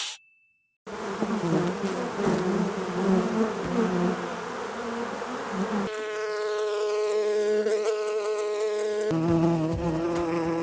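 A buzzing like flying insects' wings, starting about a second in and running steadily, with its pitch shifting twice later on.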